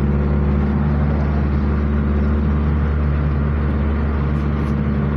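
Steady drone of a car's engine and road noise heard from inside the vehicle, holding an even low hum throughout.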